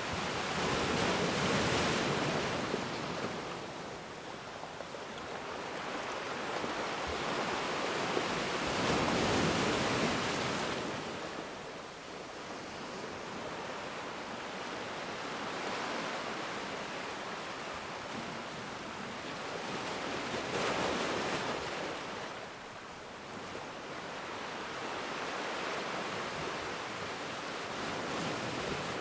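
Ocean waves breaking and washing on the shore, a steady hiss of surf that swells every several seconds as each wave comes in and falls away.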